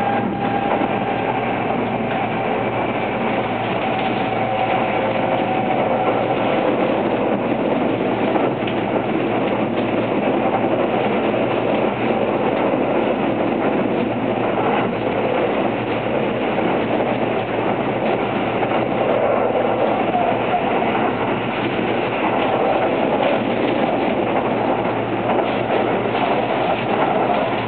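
Running noise of a Kintetsu 22600 series electric limited express heard inside the passenger car at speed: a steady rumble of wheels on rail with occasional faint clicks. A faint whine fades out in the first few seconds.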